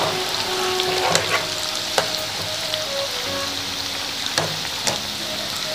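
Namak pare dough pieces sizzling steadily as they deep-fry in hot oil in a wok. A wire-mesh skimmer stirs them, giving a few light clicks against the pan.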